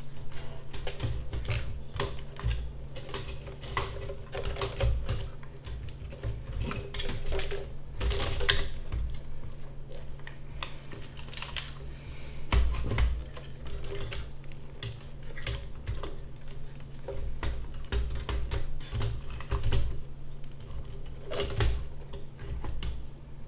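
Hands fitting a power supply, bracket and cables into a small-form-factor PC case: many irregular small clicks, taps and knocks of plastic and metal parts, over a steady low hum.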